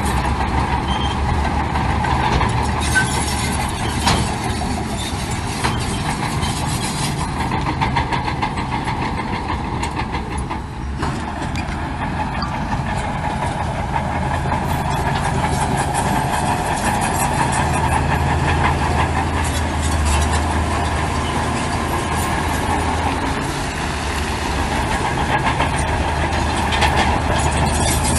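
Heavy diesel earthmoving machinery, a bulldozer or dump trucks, running steadily with a constant engine drone and some metallic clatter.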